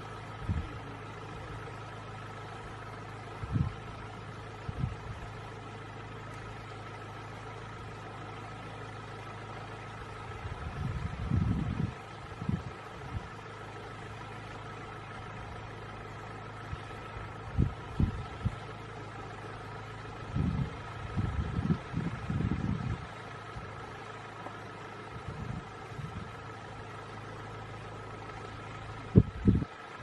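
Steady low hum of an idling vehicle engine, broken by a few short low thumps and bumps, clustered about a third of the way in, past the middle and near the end.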